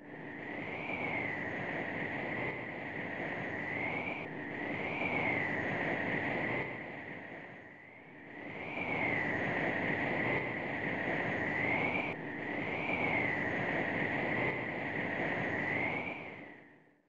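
Steady rushing air noise with a thin whistle that wavers up and down. It dips about halfway through and fades out near the end.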